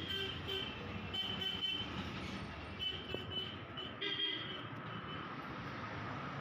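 Motor vehicle passing with a steady rumble and a series of short horn toots, about four groups of them.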